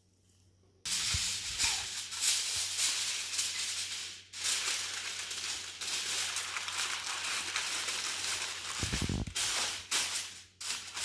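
Aluminium foil crinkling and crumpling as it is folded and crimped around a rack of ribs, starting about a second in, with a dull thump near the end.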